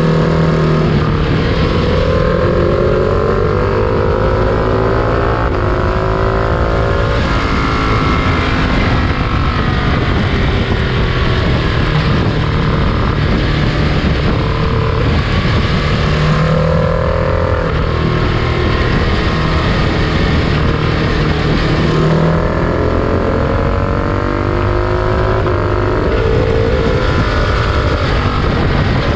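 Freight train in motion, heard from on board: a loud, steady rumble with a low hum and several pitched tones that slowly slide up and down.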